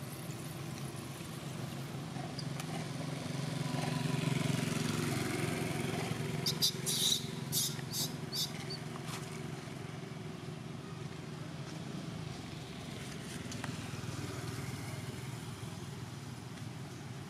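A motor vehicle's engine hum that swells for a few seconds and then fades, as if passing by. A handful of short, sharp high-pitched sounds come in quick succession in the middle.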